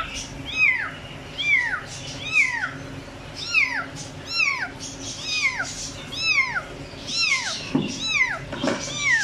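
Young kitten meowing over and over, about one call a second, each call high and falling in pitch: a kitten left alone, calling for its mother to come back for it.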